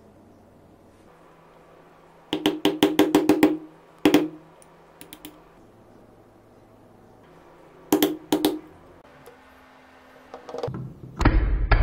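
Metal hand tools knocking and tapping on an old DC motor pump during disassembly: a fast run of about eight sharp taps, a few single knocks, then a louder, heavier clatter near the end as the motor housing is handled.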